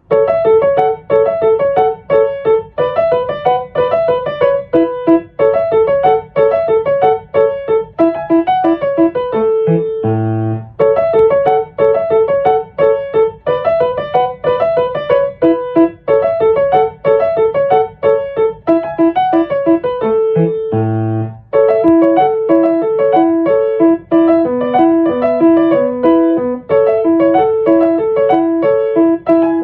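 Background music: a piano or electric keyboard playing a steady run of notes in repeating phrases.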